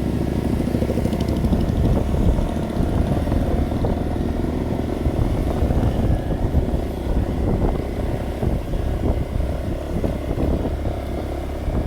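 Motorcycle riding along, its engine mixed with continuous, irregular wind rumble on the microphone.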